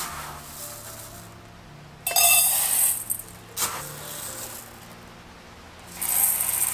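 Dry uncooked rice grains rustling as a plastic cup is scooped through them in a rice storage bin, loudest a couple of seconds in. Near the end the rice is poured from the cup into a stainless steel bowl, pattering against the metal. Soft background music plays underneath.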